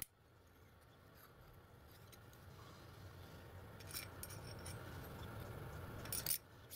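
Light metallic clicks and clinks of a small brass piston with cast-iron piston rings being handled on a bench, one click about four seconds in and a louder cluster about six seconds in, over faint room hiss.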